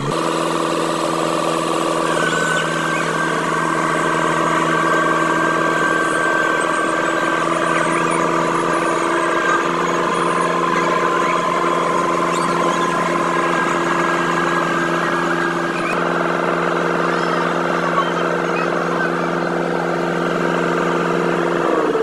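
Diesel engine of a Sumitomo HA45C tracked asphalt paver running at a steady speed while paving: a constant drone with a steady higher whine over it.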